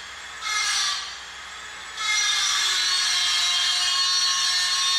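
Power-tool whirring used as a title-card sound effect: a short burst about half a second in, then from about two seconds in a longer, steady whir whose pitch slowly sinks.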